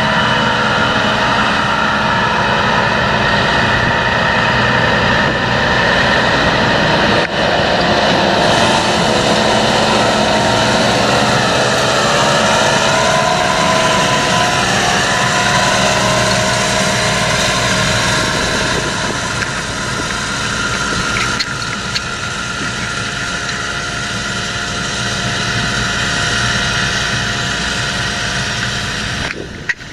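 John Deere 7230R tractor's diesel engine running steadily under load, pulling a Väderstad seed drill through the soil while drilling peas; the pitch dips slightly around the middle, and the sound is a little quieter in the last third.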